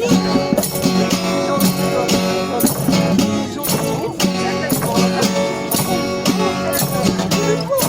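Music with a steady beat and a plucked guitar part.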